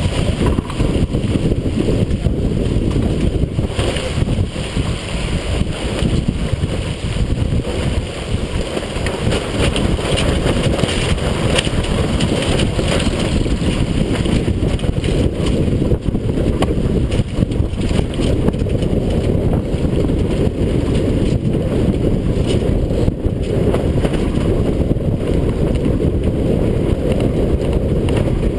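Strong wind buffeting the microphone of a sailboat under way, a loud, steady rumble, with water rushing and splashing along the heeled hull.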